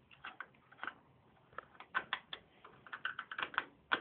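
Screwdriver working the mounting screws of a CPU cooler fan on a desktop motherboard, making irregular light clicks and scrapes.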